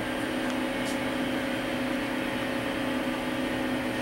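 Steady hum of running machinery with a low, even tone, and a faint tick about a second in.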